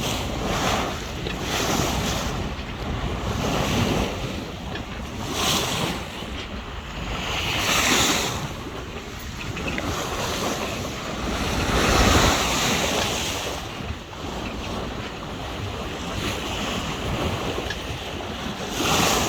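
Choppy sea splashing and rushing along a small sailing yacht's hull, with wind buffeting the microphone; the wash swells louder every few seconds as waves come through.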